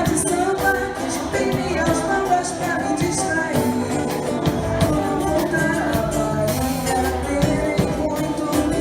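Live band music with a steady percussion beat under melodic lines, at a constant level.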